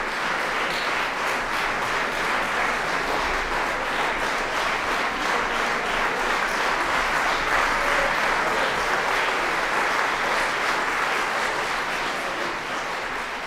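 Concert audience applauding: dense, steady clapping that starts to die down near the end.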